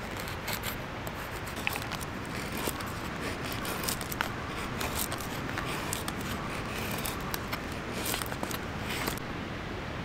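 Knife blade shaving thin curls off a split wooden stick to make a feather stick: a run of short, irregular scraping strokes over a steady background hiss. The strokes stop about nine seconds in.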